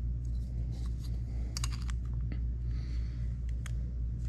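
Scattered light clicks of a chainsaw chain and a small metal depth-gauge tool being handled on the bar, which is clamped in a vise. A steady low hum runs underneath.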